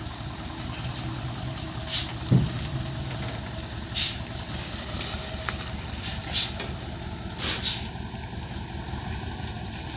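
Komatsu excavator's diesel engine running steadily, with several short hisses and one loud clunk about two and a half seconds in.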